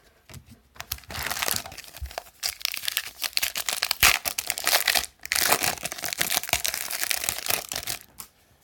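A trading card pack wrapper being torn open and crinkled. There are two long stretches of crackling with a short break about five seconds in.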